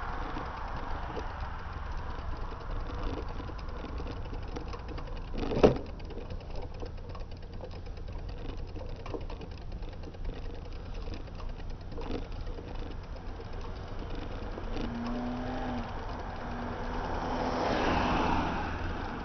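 Steady wind and road rumble on a camera riding on a bicycle, with a sharp knock about six seconds in and a car passing near the end.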